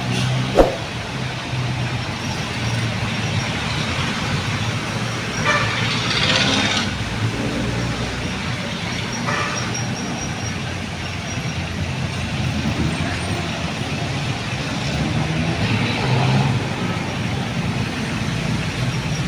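Street traffic: the steady engine hum of passing cars and trucks, with a sharp click just after the start and a brief louder hiss about six seconds in.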